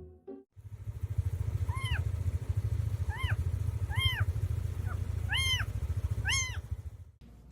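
A cat purring steadily, with about six short, high mews or chirps over the purr. It stops about 7 s in.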